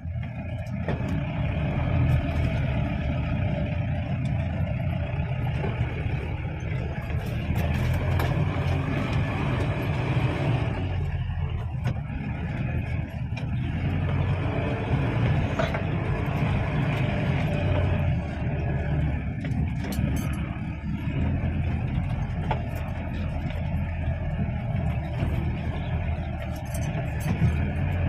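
Mahindra Thar driving off-road over sandy ground, heard from inside the cab: a steady low engine and drivetrain rumble, with a few brief clicks and rattles along the way.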